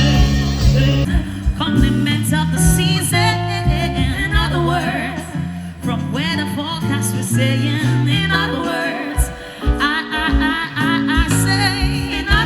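Live band music with a lead singer: a sung melody with vibrato over bass and accompanying instruments.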